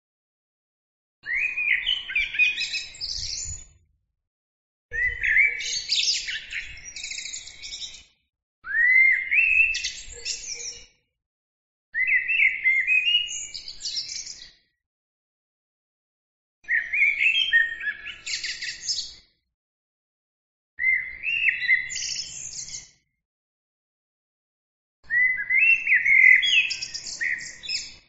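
Common blackbird singing: seven separate song phrases of two to three seconds each, with silent pauses between. Each phrase opens with whistled, warbling notes and ends in a higher, busier twitter.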